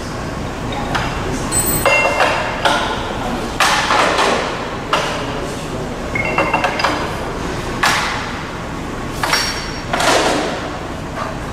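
Sheet-metal parts clanking and ringing as they are handled and slid across a folding machine's metal back table: a series of sharp knocks, several leaving a short metallic ping, mixed with a few scraping sweeps of metal on metal.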